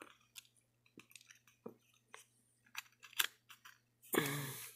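Small plastic model train car parts clicking and tapping as they are handled and pressed together, in short irregular ticks. About four seconds in there is a brief, louder noise.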